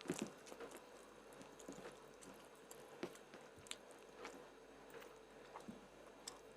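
Close-miked chewing and mouth sounds of a person eating: soft, irregular wet clicks, the loudest about a second in.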